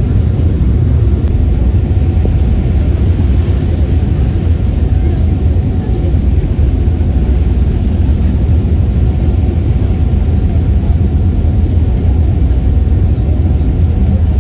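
Passenger ferry's engine running with a steady low rumble, with a faint steady hum above it.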